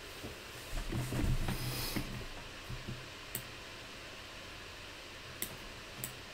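A few single, sharp computer-mouse clicks, spaced a second or more apart, while selecting text. About a second in, a brief low murmured hum from the person at the desk.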